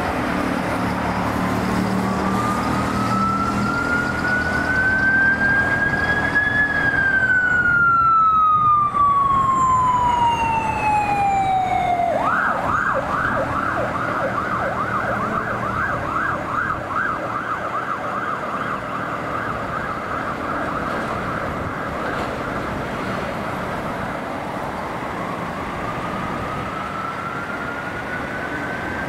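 NSW Ambulance siren sounding while responding: a slow wail rising and falling, switching about twelve seconds in to a fast yelp, then back to a slow wail near the end. It grows louder, then fades as the ambulance moves away.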